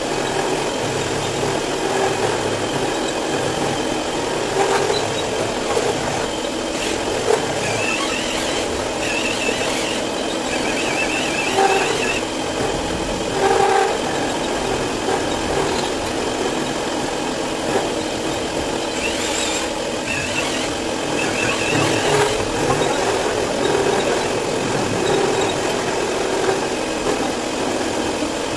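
Milling machine running with its end mill cutting aluminium, chips flying; a high-pitched squeal from the cut comes and goes twice, about a third of the way in and again past the middle.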